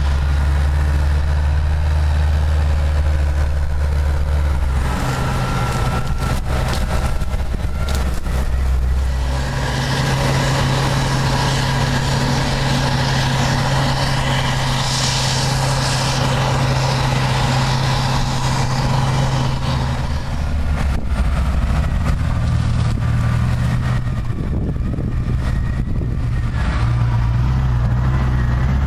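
Diesel engines of a New Holland tractor pulling a silage wagon and of a Claas Jaguar 960 forage harvester chopping maize, running steadily under load. The harvester's engine and chopping hiss are loudest around the middle as it works close by.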